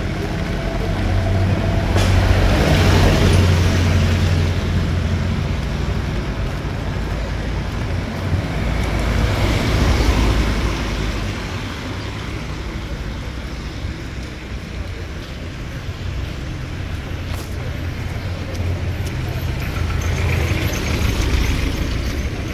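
Street traffic on a rain-wet road: cars drive by with engines running and tyres on wet asphalt, the sound swelling as one passes about two seconds in, again around ten seconds and near the end, over a steady low rumble.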